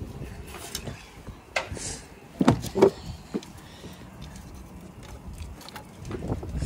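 Wind buffeting the microphone, with a few sharp knocks and clatters of firewood sticks being pushed into a wood-fired chulha, the loudest in a cluster about halfway through.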